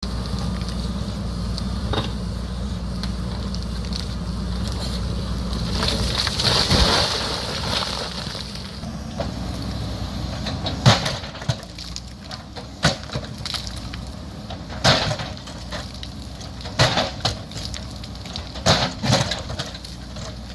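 JCB backhoe loader's diesel engine running steadily, then a burst of hissing scrape about six seconds in. After it come sharp knocks roughly every two seconds, typical of the bucket working against rock.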